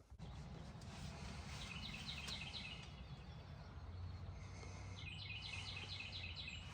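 A songbird singing twice, a rapid run of high repeated notes about a second and a half in and again from about five seconds in, over a low steady rumble.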